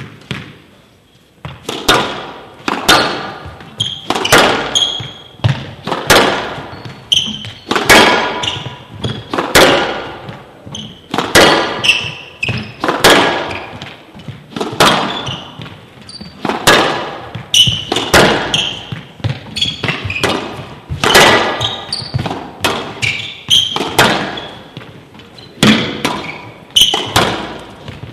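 A squash rally on a glass-walled court: a steady run of sharp echoing knocks, about one or two a second, as rackets strike the ball and the ball hits the walls and floor. It starts about a second and a half in, and each knock rings on in the large hall.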